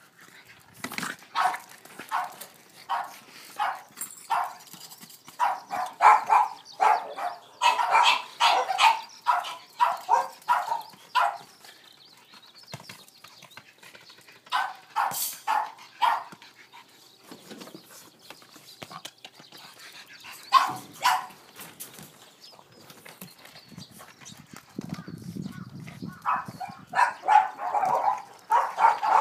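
Boston terrier barking excitedly at a ball, in runs of short, quick barks with pauses between. The barking is densest through the first ten seconds and again near the end.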